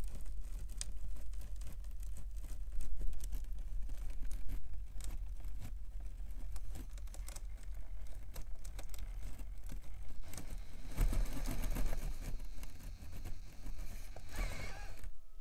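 Micro RC rock crawler with a brushless motor climbing slowly over stone steps: the drivetrain runs under a steady low hum while the tires and chassis give a string of small clicks, knocks and scrapes on the rock. The sound gets busier about eleven seconds in and again near the end.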